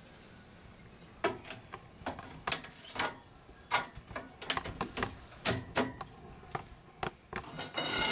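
Aluminum railing balusters clinking and knocking against each other and the metal rails as they are picked up and fitted into place: a run of irregular sharp taps and clicks, busiest near the end.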